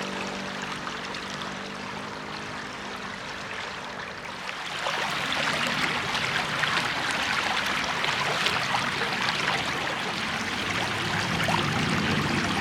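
Creek water running and trickling, steady at first and louder from about halfway through.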